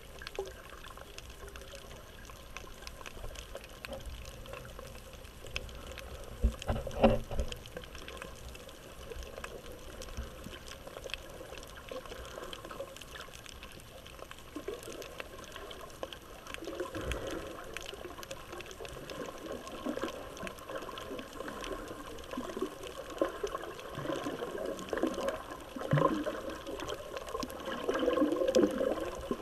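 Underwater sound of a camera submerged near the surface, recording muffled sloshing and bubbling water with faint scattered clicks. There is a louder gurgling burst about seven seconds in, and the bubbling grows stronger near the end.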